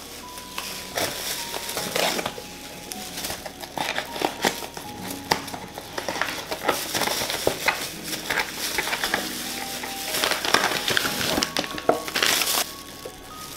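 Cardboard box of hotteok mix being opened and its plastic mix packets crinkling as they are pulled out and handled in plastic food gloves: a string of rustles and crackles. Background music runs underneath.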